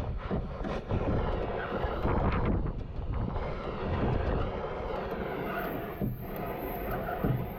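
A powered machine running steadily, with a few sharp knocks over it.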